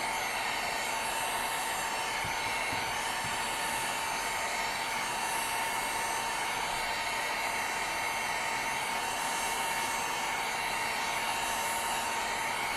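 Hot air blower running steadily on its low setting: an even rush of air with a thin steady whine, heating a phone's display to soften its adhesive.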